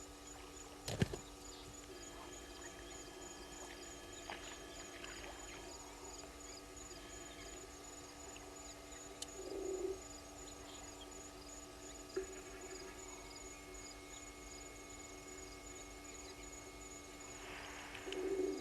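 Outdoor waterhole ambience: insects chirping steadily in a fast, even pulse, with a sharp knock about a second in and short rustling or splashing bursts about halfway through and near the end.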